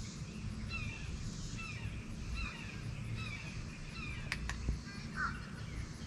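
Short chirping animal calls repeating, with one sharp click about four and a half seconds in.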